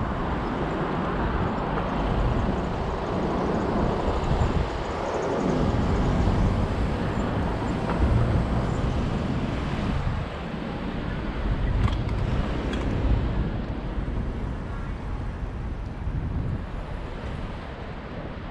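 Wind buffeting the microphone of a camera carried on a moving bicycle, a heavy low rumble that swells and eases, mixed with road and traffic noise. It is loudest in the middle and lighter after about ten seconds.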